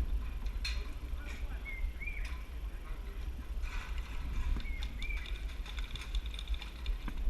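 Steady low rumble of wind and handling on an action camera's microphone, with scattered sharp clicks and a few short high chirps.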